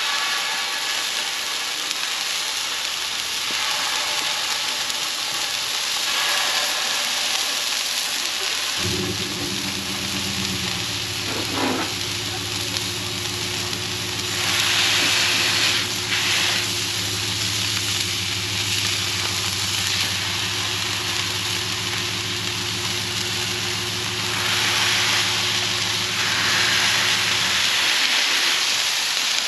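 Turkey burger patties sizzling with a steady hiss on a hot Blackstone flat-top griddle as they are smashed flat with a metal burger press. A steady low hum joins about a third of the way in and stops near the end.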